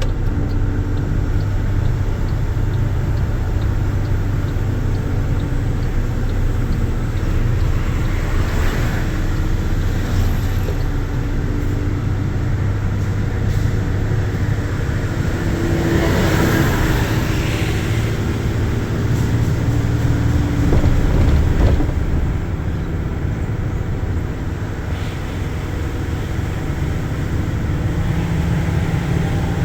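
A road vehicle driving on a wet road in the rain, with a steady engine drone and tyre and road noise throughout. Brief louder swells come about nine and sixteen seconds in.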